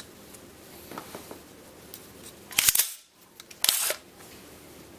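AR-15 rifle being handled for a safety check: a couple of faint clicks, then two loud metallic clacks about a second apart as the action is worked.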